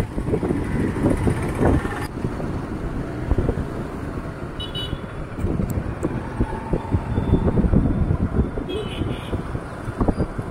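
Road traffic noise with a gusty low rumble, and two short high toots about five seconds in and again near nine seconds.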